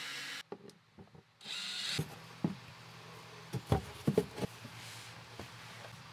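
A DeWalt cordless drill/driver whirs briefly, backing out a screw, then a wooden access panel is knocked and scraped as it is worked loose by hand, with the loudest knocks just before the middle of the second half.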